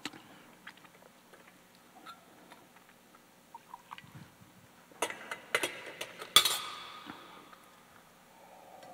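Light clinks and taps of metal and glass altar vessels being handled during communion. A cluster of sharper, ringing clinks comes about five to six and a half seconds in, the loudest near the end of that run.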